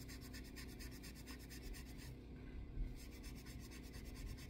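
Steel wool scrubbing the steel of a straight razor by hand in quick, even back-and-forth strokes, scouring off rust. The strokes pause briefly about two seconds in, with a small knock, then resume.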